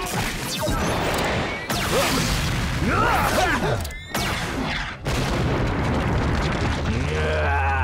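Cartoon battle sound effects: booms and blasts from fired slugs, with swooping whistling glides, over dramatic background music. There are sudden new hits about 4 and 5 seconds in.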